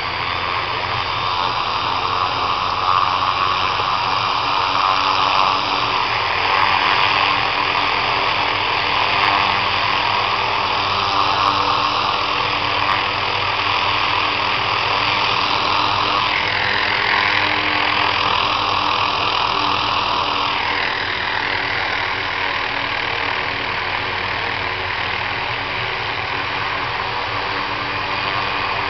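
Helicopter running on the ground before take-off: a loud, steady engine and rotor noise with a whine that dips in pitch and recovers about two-thirds of the way through.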